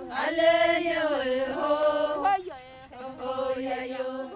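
Background music of a sung chant: voices holding long notes that glide slowly up and down, with a brief break midway.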